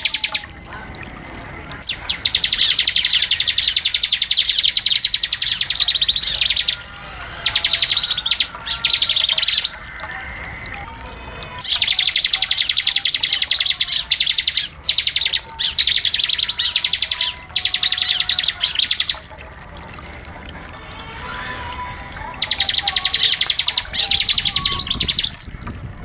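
Ciblek (prinia) singing in long, rapid, buzzing trill phrases of a few seconds each, with short pauses between them.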